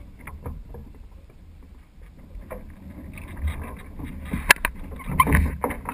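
Water sloshing and lapping against the hull of a Weta trimaran in shallow water, with a low wind rumble on the microphone. From about four seconds in, a run of sharp knocks and clicks comes from the boat.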